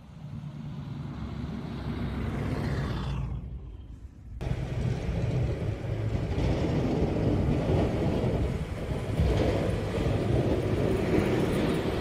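Vehicles driving on a snow-covered street. First a pickup truck drives past, its tyre noise sweeping down in pitch and fading. Then, after a sudden cut about four seconds in, a snowplow truck comes on with its engine rumbling and its blade pushing along the snowy road.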